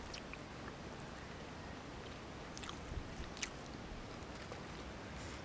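Faint close-up chewing of a mouthful of cooked fish, with a few soft mouth clicks a little past the middle.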